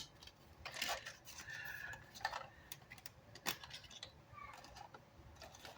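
Faint scattered clicks and light knocks of small parts and tools being handled on a workbench.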